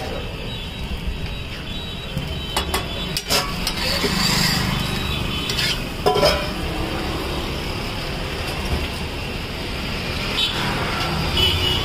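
Tomato onion uttapam cooking on a flat iron griddle with a light sizzle, against a steady low rumble of street noise. A few sharp clicks come in the first half.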